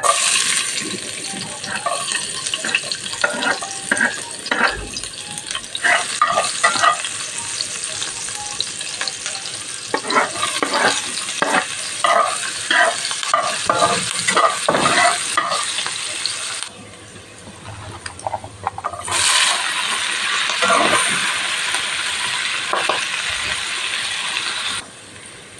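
Fried rice (nasi goreng) sizzling in a hot pan and being stirred, with many scraping and clinking strokes over the hiss. The sizzle drops away for about two seconds about two-thirds of the way through, then resumes and cuts off shortly before the end.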